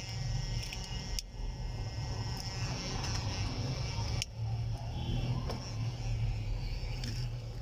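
Steady low mechanical hum with a faint high-pitched whine above it and a few light clicks.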